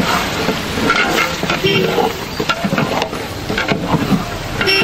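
Biryani stock boiling hard in a large aluminium pot, a steady bubbling hiss, with a long metal paddle being stirred and clinking against the pot now and then.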